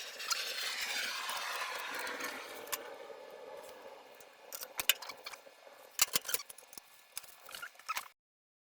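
Metal parts of a vending machine being handled as a bill acceptor is fitted back in: a fading rushing scrape over the first few seconds, then scattered metallic clicks and clinks.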